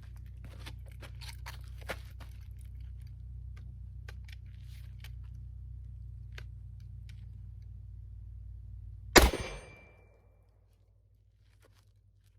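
A single shotgun shot firing birdshot, about nine seconds in, sharp and much the loudest sound, with a brief ringing tail. Before it, small clicks and handling sounds over a steady low hum that fades out after the shot.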